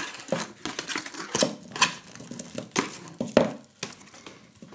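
Kinder Surprise eggs being taken out of a cardboard box and set down on a wooden table: cardboard rustling with several light knocks of the eggs against the box and the table.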